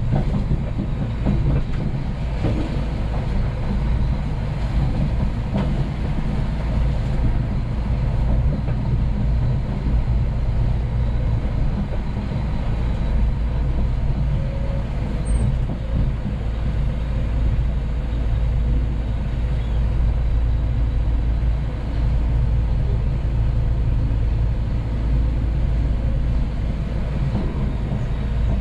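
Scania P380 dump truck on the move: its diesel engine and road noise make a steady, deep rumble that does not let up.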